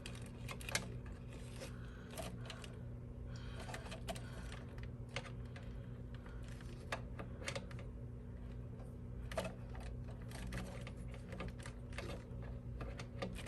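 Scattered light clicks and taps of wires and plastic parts being handled and pushed into place, over a steady low hum.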